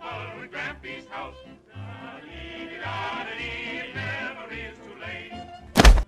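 Music with a wavering, warbling singing voice over a steady bass beat. A short, loud burst of noise cuts in near the end.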